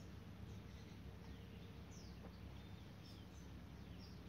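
Faint outdoor ambience: a low steady rumble with scattered short, high, downward-sliding bird chirps.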